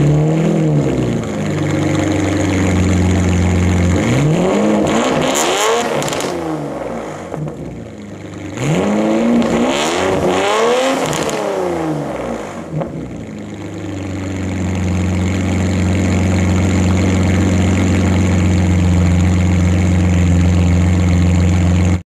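BMW 850i V12 exhaust, the engine blipped and then revved up and let fall back a few times. It settles to a steady idle for the last eight seconds or so.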